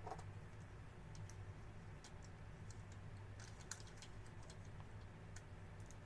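Faint, scattered small clicks of plastic model-kit parts being handled and fitted together, with one sharper click in the middle, over a steady low hum.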